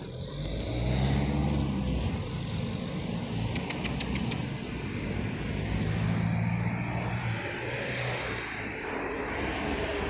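A motor vehicle's engine going by on the road, the hum swelling at the start and again midway. About three and a half seconds in comes a quick run of five sharp high ticks.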